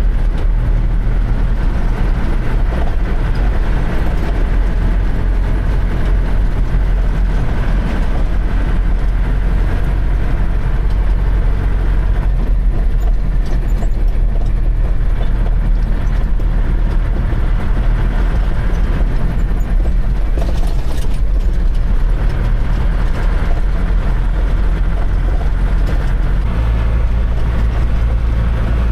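Dump truck's diesel engine running steadily, its sound deep and low and at an even level throughout.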